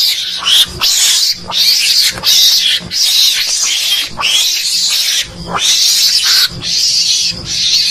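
Mongoose (garangan) calls from a hunting-lure recording: short, raspy, high-pitched calls repeated in a steady run, about one every three-quarters of a second.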